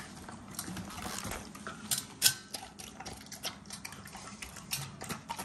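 Dog noisily lapping and slurping raw eggs from a stainless steel bowl, with wet smacking and clinking of tongue and muzzle against the metal. There is one sharp clack a little over two seconds in.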